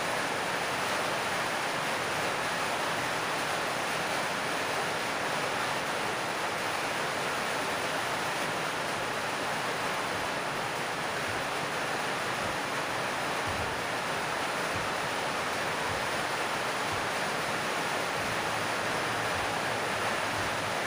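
Heavy rain falling on a metal roof: a steady, even hiss.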